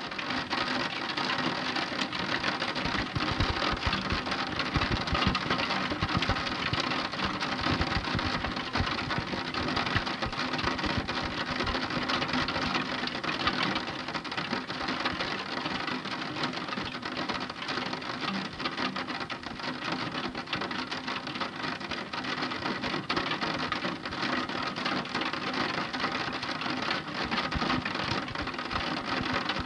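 Heavy rain falling steadily, a dense continuous patter of drops.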